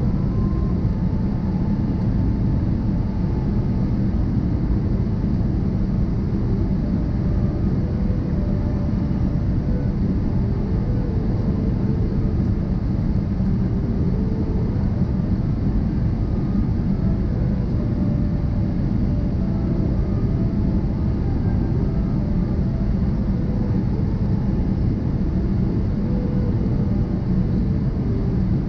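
Steady cabin noise of a jet airliner during its descent: a constant, low rumble of engines and airflow heard from inside the passenger cabin.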